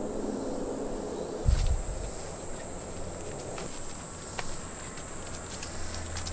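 Insects chirring in one steady, high, unbroken tone. A dull low thump comes about a second and a half in, with a few faint ticks after it.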